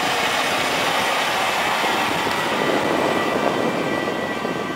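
A John Deere tracked tractor's diesel engine runs steadily under load, pulling a tillage cultivator through dry soil. It makes a loud, even drone with a faint high whine over it.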